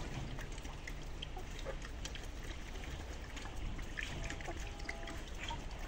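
Chickens pecking at scattered paddy rice on concrete, with a young wild boar feeding among them: many small scattered ticks and rustles over a steady background hiss.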